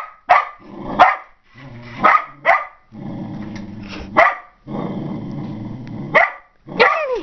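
Dog barking at a remote-control toy car: about six short, sharp barks spread through, with a steadier low sound between some of them.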